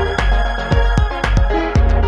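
Electronic background music with a steady beat of about two beats a second over a deep bass.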